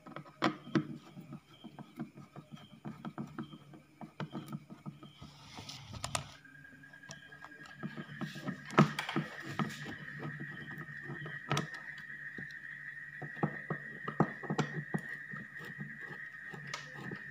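A screwdriver turning and scraping in the screws of a Sharp CBOX ASP1001 active subwoofer's metal amplifier back plate, with many irregular clicks. A steady high tone comes in about six seconds in.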